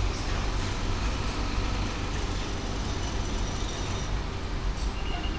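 Steady low rumble and hiss of road traffic mixed with construction equipment at an excavation. A brief faint high tone sounds near the end.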